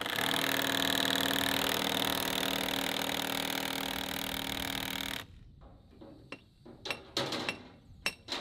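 A cordless drill running steadily at an even pitch for about five seconds, then stopping abruptly, followed by a few sharp metallic clinks.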